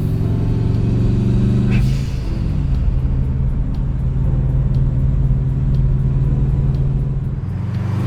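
Turbocharged Subaru EJ207 flat-four with a straight-pipe exhaust, running at low, steady revs. The note eases down a little about two seconds in and then holds steady.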